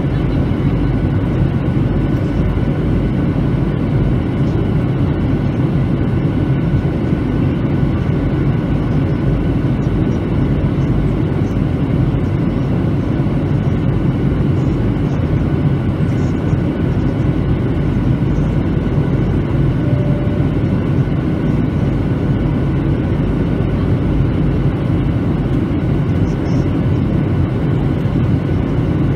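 Steady cabin roar of a Boeing 737-900's CFM56 turbofan engines and rushing airflow, heard from inside the passenger cabin on approach: a low, even rumble with a few faint steady tones above it.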